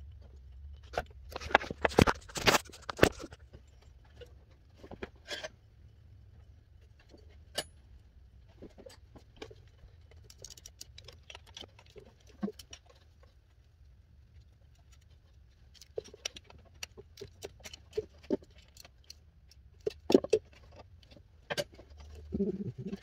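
Hand work on engine parts: scattered clicks, taps and light metal clinks of tools and parts being handled, with a louder run of knocking and scraping about two seconds in. A low steady hum sits underneath.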